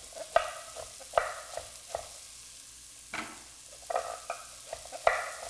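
Chef's knife slicing parsnip and carrot on a wooden cutting board: irregular knocks of the blade against the board, a few sharper than the rest, over a faint sizzle of onions browning in a pot.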